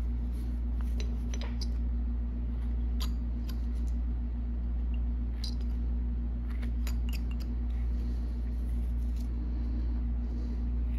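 Carving knife slicing small chips from a wooden carving: scattered short snicks and clicks, now and then two or three close together. A steady low hum runs underneath.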